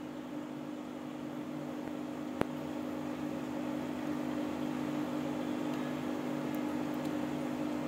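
Aquarium pump humming steadily, with one sharp click about two and a half seconds in.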